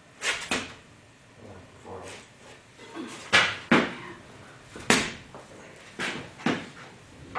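Sharp knocks and clunks from the hanging Jeep hardtop being handled into position, about nine in all, irregular and often in quick pairs, loudest around the middle.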